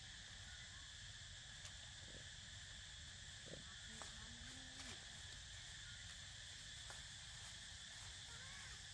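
Faint, steady high-pitched drone of an insect chorus, with a few soft clicks.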